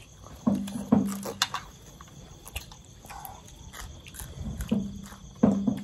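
Crickets chirping steadily throughout, with close-up eating sounds of raw greens being chewed and crunched. Several short smacks and knocks stand out, the loudest about half a second and a second in, and again near the end.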